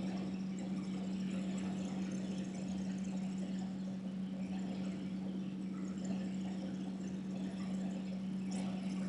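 A steady low hum under faint room noise, with a small tick near the end.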